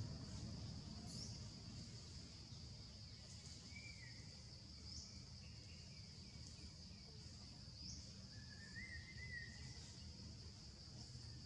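Faint outdoor ambience: a steady high insect drone, with short rising chirps every second or two. A couple of brief warbling calls come through, one about four seconds in and another near nine seconds, over a low rumble.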